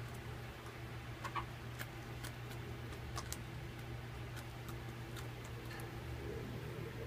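Rhode Island Red hens pecking at a fruit-filled block of ice: irregular sharp beak ticks, a dozen or so, spread unevenly, over a steady low hum.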